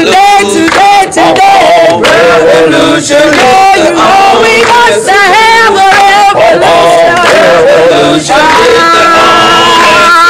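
A crowd of demonstrators chanting a rhythmic slogan in unison, led by a woman's voice into a microphone. From about eight seconds in, the voices hold longer, steadier notes.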